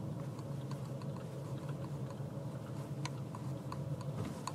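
Steady low hum of a car's engine heard from inside the vehicle, with scattered light clicks and taps over it, more of them near the end.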